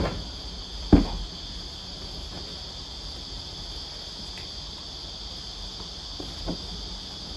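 A steady, high-pitched insect drone. Over it come soft thumps of bedding being put down on the bed: one at the start, a louder one about a second in, and a fainter one near the end.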